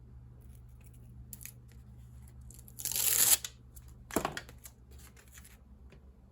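Backing being peeled off a self-adhesive sanding disc: a loud tearing rip about three seconds in and a shorter one about a second later, among small fingernail scratches and clicks.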